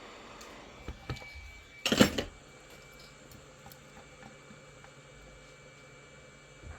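Two light clicks, then a brief loud clatter of hard objects about two seconds in, followed by a few faint ticks.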